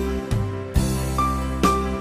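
Background music with a steady beat, a strike a little under once a second over held notes, and a brighter high note entering about halfway through.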